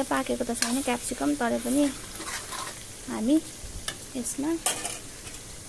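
Spatula stirring and scraping capsicum and onion around a wok with a frying sizzle, as the vegetables are stir-fried in oil.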